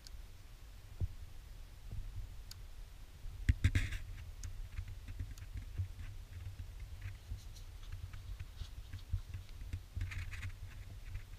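Small clicks and scrapes from a hand working the accelerator cable and throttle linkage on a Ford Fiesta 1.3 Endura-E throttle body, over a low rumble. There is a louder flurry of clicks about three and a half seconds in and another near the end. The worn cable is sticking in its sheath instead of springing back.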